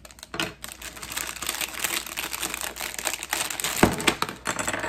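Packaging rustling and crinkling as it is handled, with many small clicks and one sharp knock about four seconds in.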